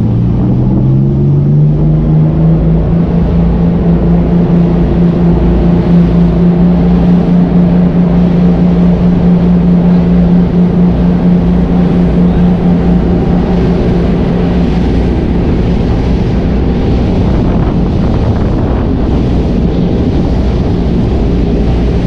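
Jet ski engine speeding up, its pitch rising over the first couple of seconds, then running steadily at speed across the water, with wind buffeting the microphone.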